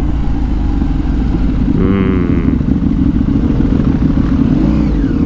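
Motorcycle engine running while riding through traffic, with low rumbling wind noise on the helmet microphone; the engine pitch climbs steadily over the last two seconds as the bike speeds up.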